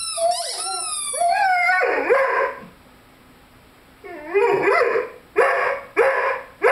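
A five-month-old Rhodesian Ridgeback puppy howling: a long rising howl, then after a short pause a run of about four short howling barks.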